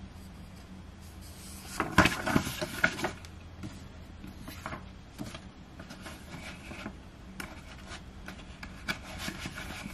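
Paper rustling as the pages of an album photo book are handled and turned, loudest in a burst of rustling about two seconds in, then lighter scattered rustles and ticks.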